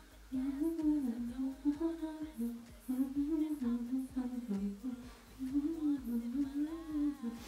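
A person humming a tune: a wandering melody of short held notes that step up and down.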